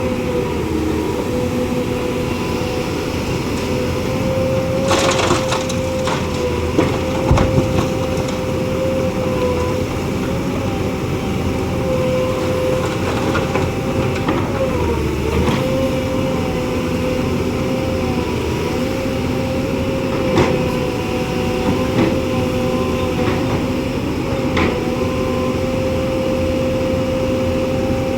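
Loaded dump truck's engine running at a steady, even drone, dipping briefly in pitch about halfway through, with scattered sharp knocks and clunks.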